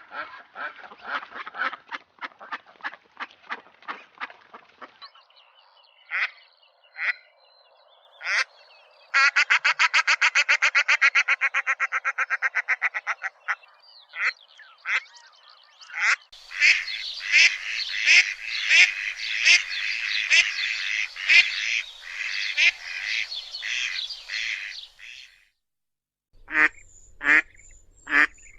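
Ducks quacking: spaced single quacks, then a fast, even run of quacks, then several ducks calling over one another for several seconds. The calling stops briefly near the end, then single quacks resume.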